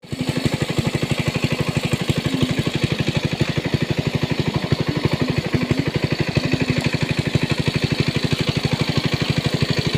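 Small engine running steadily at idle-like speed, a rapid even thumping of about nine beats a second.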